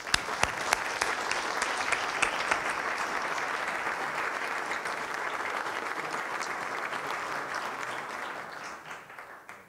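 Audience applauding: a few sharp separate claps grow at once into steady applause, which dies away near the end.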